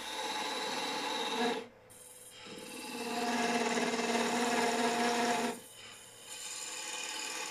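Wood lathe spinning a cherry-wood workpiece while a turning tool cuts it, shaping the base: scraping of the tool on the wood over a steady hum from the machine. The cutting comes in three stretches with two brief breaks, one about two seconds in and one near six seconds.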